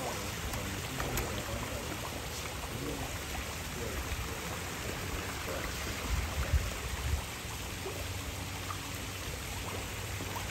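Steady trickling, running water at a koi pond, with light splashing from koi feeding at the surface. A brief low rumble comes about six and a half seconds in.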